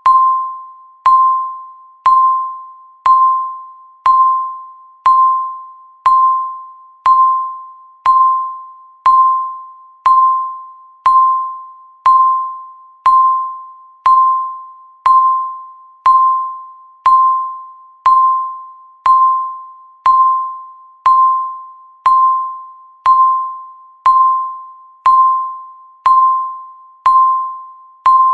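Countdown timer beeping once every second: a single steady electronic chime, each one striking sharply and fading away before the next.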